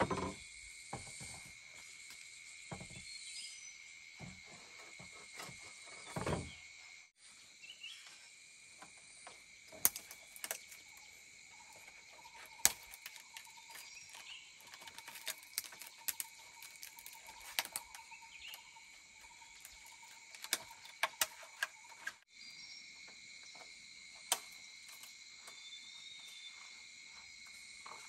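A steady high-pitched insect chorus, with many short, sharp knocks and clicks scattered through it.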